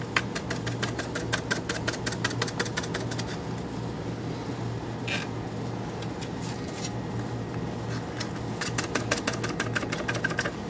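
Magnetic stirrer running with a steady motor hum while the stir bar spins in a bottle of solution, clicking rapidly against the bottle bottom in two spells, at the start and again near the end.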